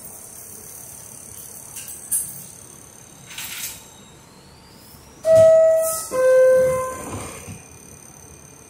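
R62A subway car's two-tone door chime: a higher tone then a lower one, each under a second, sounding about five seconds in, the signal that the doors are about to close.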